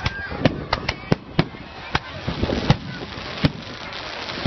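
Aerial fireworks bursting overhead: a string of sharp cracks and bangs, about eight in four seconds at uneven intervals.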